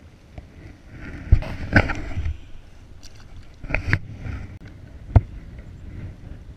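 Handling noise in an inflatable fishing raft: four short, sharp knocks, the loudest about a second in and again near the end, with rustling of hands and fishing gear in between, over a low rumble of wind on the microphone.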